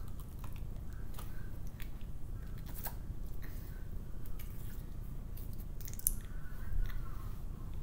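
Blue slime squeezed and worked in the hands, giving irregular small squishy clicks and pops over a steady low hum.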